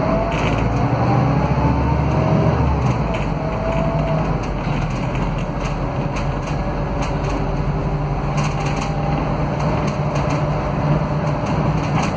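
Scania K320UA articulated bus from the rear passenger section on the move: the five-cylinder Scania DC09 diesel drones steadily while the hub-reduction rear axle's gear whine slides up and down. Light rattles come from the bus interior.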